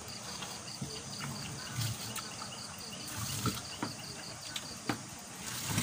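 Night insects, crickets among them, chirping in a steady, fast, even pulse, with a few light clicks of plates and utensils and faint low murmurs from people eating.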